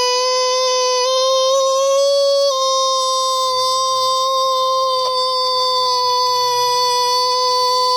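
A long, loud, exaggerated crying wail held on one high pitch, edging up slightly about a second in and settling back a little after two and a half seconds.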